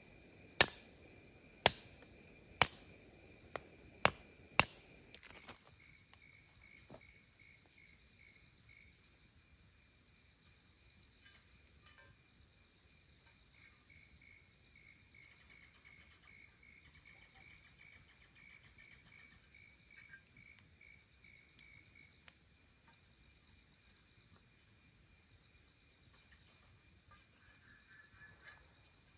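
Knife chopping small sticks into kindling: sharp strikes about once a second through the first five seconds. After that, a faint insect chirps with a steady, pulsing high note, and small handling noises come near the end.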